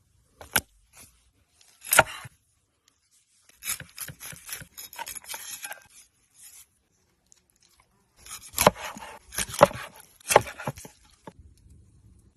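Knife chopping on a cutting board: about five sharp chops, spread unevenly, with stretches of scraping and rustling between them.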